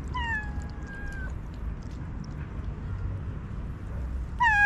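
Kitten meowing twice: a thin, high call about a second long that slides down in pitch, then a louder one near the end.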